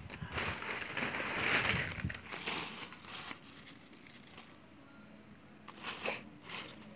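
Fresh mulberry leaves rustling and crinkling as they are handled and piled onto a bamboo tray of silkworms. The rustling is loudest in the first two seconds, dies down, and comes back in a few short bursts near the end.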